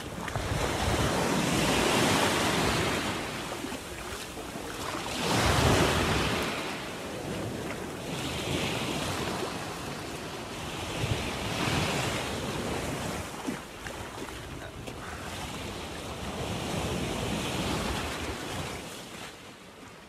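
Small sea waves washing in over a rocky shoreline, the surf swelling and fading every few seconds, with wind rumbling on the microphone.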